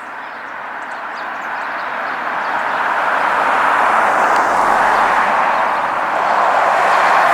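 Road traffic: a passing vehicle's tyre noise, growing louder over the first few seconds and then holding steady.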